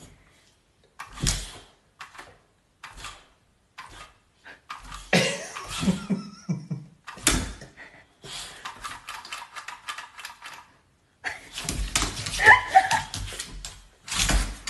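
Boxer dog barking in a string of short, separate bursts.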